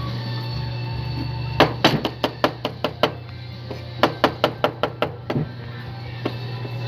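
Kitchen knife finely chopping garlic on a cutting board: two runs of quick sharp knocks, about five a second, with a short pause between.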